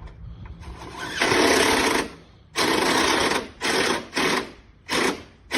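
A handheld power tool running in short bursts, first one long run and then several shorter ones in quick succession, as used on sheet-metal gutter work.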